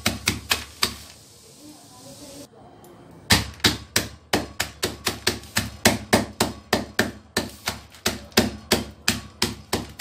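A wooden rolling pin pounding hard caramel crunch inside a plastic bag on a countertop, crushing it into coarse pieces. There are a few knocks at first, a short pause, then steady knocks at about four a second.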